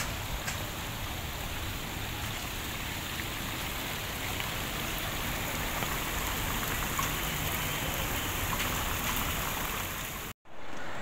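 Water from a tiered fountain's jets splashing steadily into its basin, cutting out briefly near the end.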